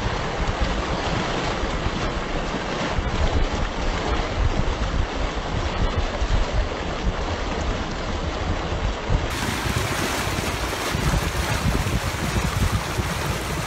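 Wind buffeting a phone's microphone: a rough, fluttering rumble under a steady hiss, which gets brighter about nine seconds in.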